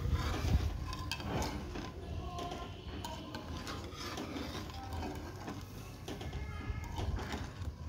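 A metal ladle stirring and scraping through sugar syrup in a metal pan as it begins to boil: a steady rough rubbing scrape with frequent small clicks of metal on metal.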